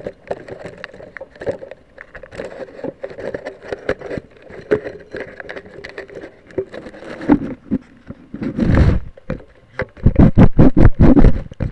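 Close handling noise on the camera's own microphone as it is packed into a model rocket's body tube: rubbing, scraping and clicks against the camera. Near nine seconds there is a heavy thump, and near the end a fast run of about eight hard knocks, as the nose cone is forced on.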